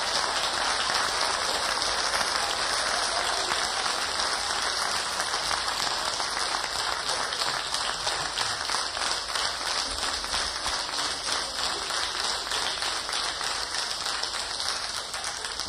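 Audience applauding: dense, steady clapping that slowly thins and fades toward the end.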